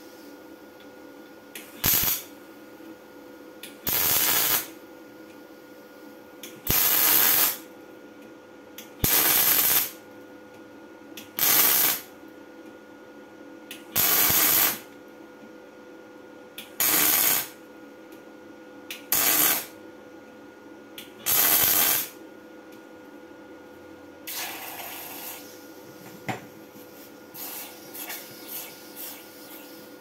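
MIG welding torch laying short spot welds on the steel hex drive coupling of an industrial blender: nine crackling arc bursts, each about half a second to a second long, a couple of seconds apart. Fainter hiss and a few light ticks follow near the end.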